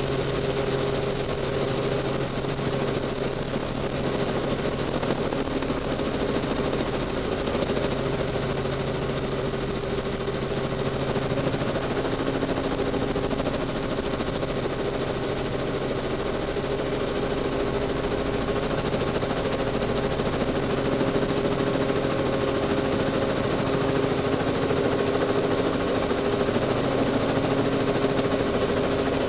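Helicopter engine and rotor noise heard from inside the cabin in flight: a steady drone.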